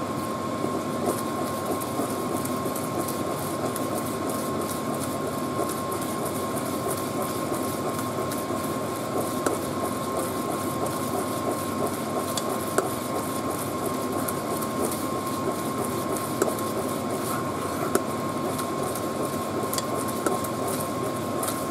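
A pot of glutinous rice cooking down in coconut milk and sugar for biko, nearly done, bubbling as a plastic spoon stirs it, with scattered light clicks. Under it runs a steady mechanical hum with a thin, steady whine.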